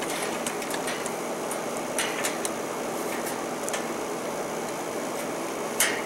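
A steady mechanical hum with a few light clicks from test leads and clips being handled; the sharpest click comes near the end.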